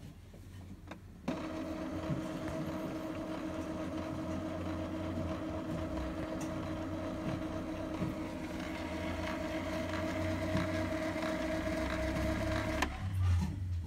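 Epson L3150 inkjet printer's motor running steadily during a Power Cleaning cycle, pumping ink through the clogged print head nozzles. It is a steady hum that starts abruptly about a second in and cuts off abruptly near the end.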